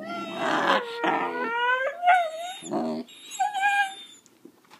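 A young dog howls and whines in answer to a "speak" command: several drawn-out calls that slide up and down in pitch over about four seconds, with no clear bark among them.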